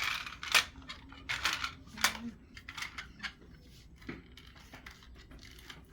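Small plastic toy cars being handled and knocked together, making a string of sharp clicks and clatters that thin out after about four seconds.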